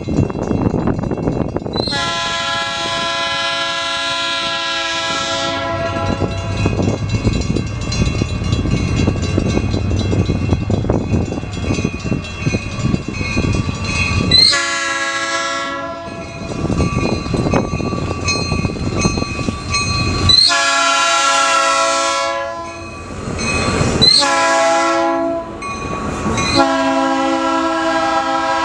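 Locomotive air horn of a Metra SW1 switcher sounding in a series of blasts: one long blast, then a short, a long, a short and a long one near the end, with the low rumble and clatter of the passing locomotive and cars between them.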